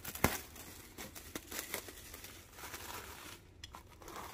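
Plastic cling film crinkling and rustling as it is pulled off a baking dish, with a sharper crackle right at the start and fainter rustles after.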